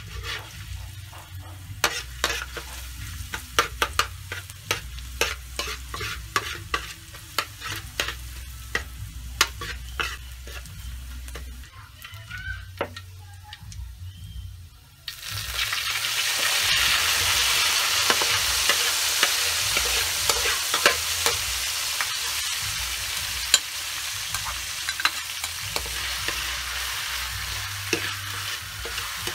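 Metal spatula scraping and tapping against a steel wok as minced garlic fries in a little oil, with a faint sizzle. About halfway through, liquid poured from a bottle into the hot wok sets off a sudden, much louder steady sizzle, and the stirring goes on.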